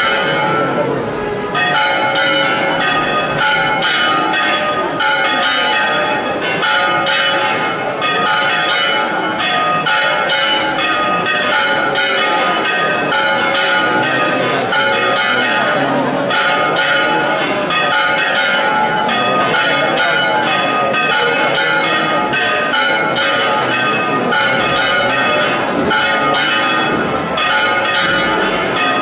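Church bells ringing fast and continuously, many overlapping strokes blending into one clangour.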